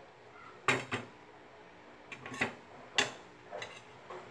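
Kitchen utensils and cookware clattering: about seven sharp knocks and clinks, the loudest near the start and about three seconds in.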